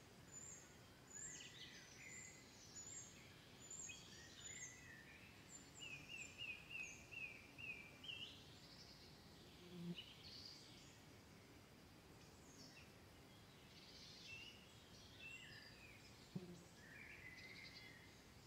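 Faint birdsong over quiet background noise: scattered high chirps, with a quick run of about six repeated notes a third of the way in. Two soft low thumps come later.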